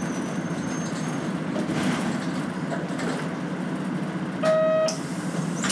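Steady engine and road drone heard from inside a running Nishitetsu city bus. About four and a half seconds in comes one short electronic beep.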